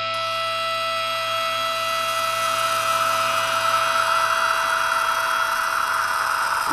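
Intro of a rock music track: several held tones under a whooshing noise swell that slowly grows louder, building toward the band's entry.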